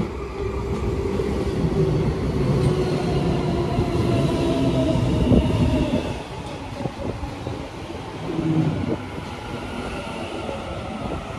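Sydney Trains double-deck electric train running in alongside the platform, with a steady rumble of wheels on rail and a motor whine. It is loudest about five seconds in and eases off after about six seconds as the cars keep rolling past.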